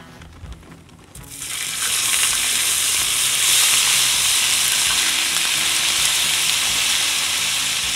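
Diced hash browns hitting hot bacon grease in a plow-disc wok and sizzling loudly. The frying hiss starts about a second in and holds steady.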